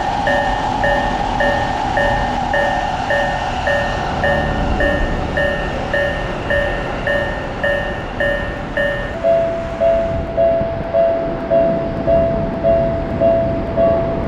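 Railroad level-crossing warning bells ringing in a steady beat of about two to three strokes a second over the rumble of a passing train. A little after halfway, one bell and the train noise stop, and a slightly higher-pitched crossing bell keeps ringing.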